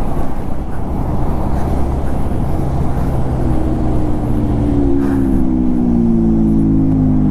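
Motorcycle riding in traffic, its engine and the wind rumbling at the microphone; about three and a half seconds in, a clear engine note comes through and slowly falls in pitch as the bike eases off.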